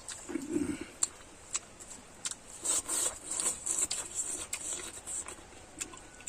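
Close-up eating sounds: wet chewing with irregular mouth clicks and smacks, and a denser stretch of chewing noise about halfway through.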